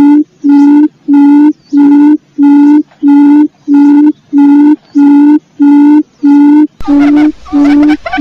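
Wild quail call played as a lure: a steady string of short, low notes, all at one pitch, about two a second. Nearly seven seconds in, a low rumble of background noise comes in beneath the calls.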